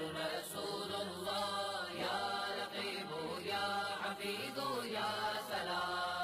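Background music of chanted singing voices over a steady low drone.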